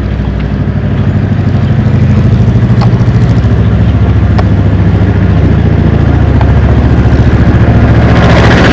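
Engine of a heavy road-construction machine running close by, with a fast low pulse, getting louder over the first couple of seconds as the machine approaches.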